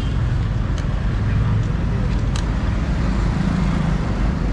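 Steady low rumble of a motor vehicle engine running, with a few faint clicks.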